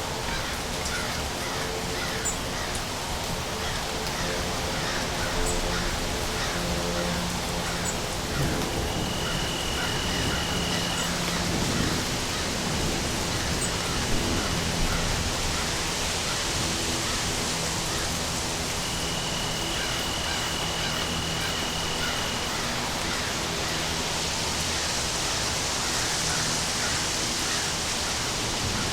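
Steady rain, an even hiss, with a high thin tone held for a couple of seconds twice, about nine seconds in and again about twenty seconds in.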